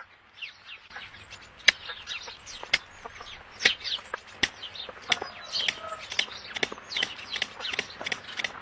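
Birds calling: a dense series of short, sharp chirps, several a second, some loud.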